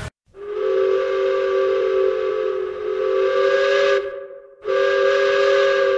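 Steam locomotive whistle blowing two long blasts, several tones sounding together. The first blast lasts about four seconds, and the second begins half a second later.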